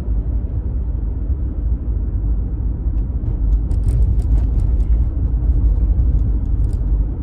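Steady low rumble of a car's engine and road noise heard inside the cabin, with a few faint ticks in the middle.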